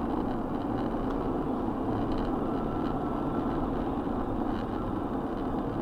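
Steady road and engine noise of a car driving at highway speed, heard from inside its cabin.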